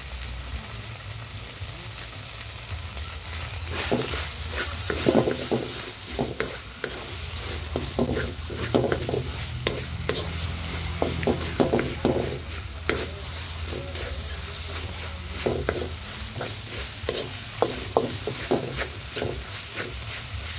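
Sliced hotdogs and corned beef sizzling in oil in a pan, stirred with a wooden spatula: a steady frying hiss, with the spatula scraping and knocking against the pan several times a second from about four seconds in.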